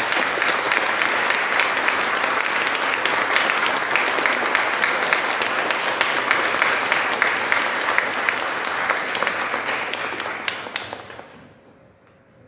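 Audience applauding in a hall, a dense patter of many hands clapping at the close of a lecture, dying away about a second before the end.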